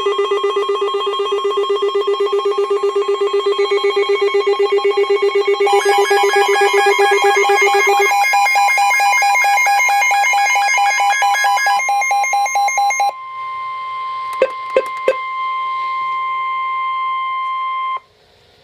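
Emergency weather alert tones from a weather radio. A rapidly pulsing electronic alarm of several layered pitches runs for about thirteen seconds. Then a steady single-pitch warning tone sounds, broken by three short blips, and cuts off after about five seconds: the attention signal for a severe thunderstorm warning.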